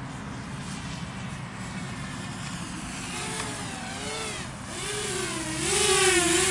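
Walkera F210 racing quadcopter flying past, its motors and propellers whining with a pitch that wavers up and down with the throttle. The whine comes in about halfway through and is loudest near the end, over a steady low rumble.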